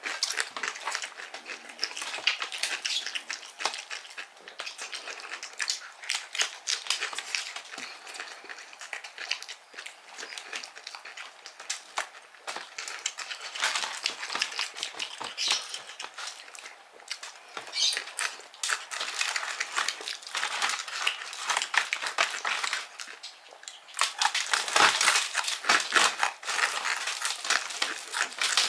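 Close-miked chewing of crispy fried chicken with kremes crumbs: dense, quick crunches and wet mouth clicks, getting louder near the end.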